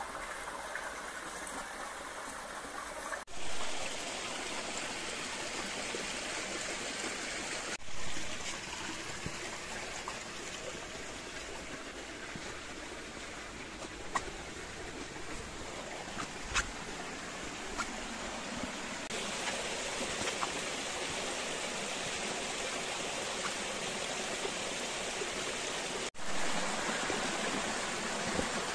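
Steady rushing of a stream running through a gorge. It cuts out for an instant three times and comes straight back.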